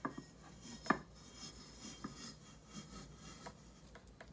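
A wedge of floral foam rubbing against a ceramic teapot's rim as it is pressed down into it, a snug fit, with two sharp knocks, one at the start and a louder one just under a second in.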